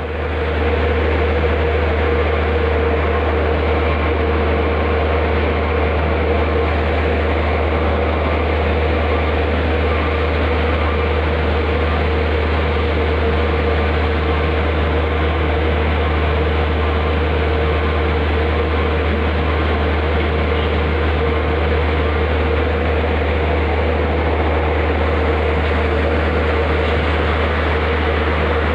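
A ferry's engines and machinery drone steadily: a deep hum with a steady higher tone over an even rushing noise, unchanging throughout.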